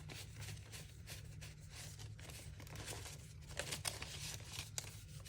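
Faint rustling and light clicks of paper cash bills being handled and slipped into a budget binder envelope.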